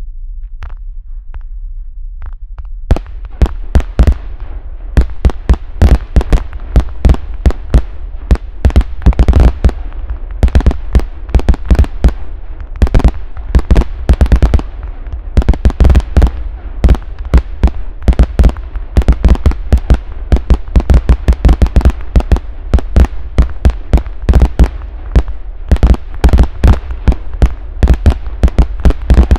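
Several Vogelschreck salute batteries, category F2 fireworks, firing together: a few faint pops, then from about three seconds in a dense, irregular stream of loud, overlapping bangs, several a second. A steady low rumble lies underneath.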